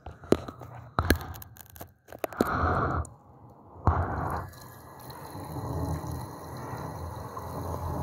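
Water running from a washbasin tap and splashing over hands being washed, settling into a steady flow that slowly grows louder over the second half. A few sharp clicks and knocks come in the first couple of seconds, and two short louder splashes in the middle.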